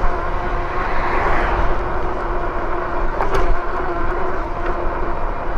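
Wind buffeting the camera microphone and road noise while riding an electric bike, with a steady low hum under it and a single sharp click about three seconds in.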